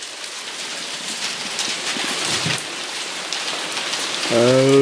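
Steady rain falling, with many single drops heard as small ticks. A person's voice sounds briefly near the end.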